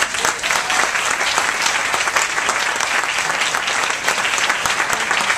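Audience applauding a presenter onto the stage: dense, steady clapping that breaks out all at once.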